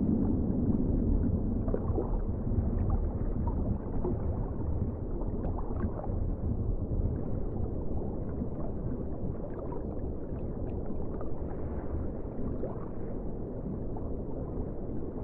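Underwater ocean ambience: a steady low rumble of moving water with scattered small bubbling pops.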